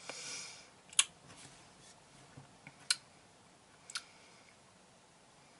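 A short breath out, then three sharp mouth clicks spaced a second or two apart: the lip and tongue smacks of someone tasting a drink.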